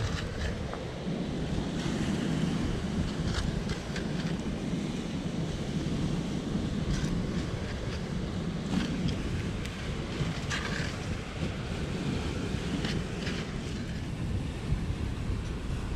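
Wind buffeting the microphone in a steady low rumble, with a few short clicks of a serving spoon against a metal pan.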